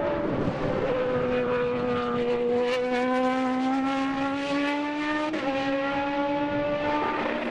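IndyCar's Honda V8 racing engine at high revs, its pitch climbing steadily under acceleration. About five seconds in the pitch drops suddenly with an upshift, and the engine pulls on.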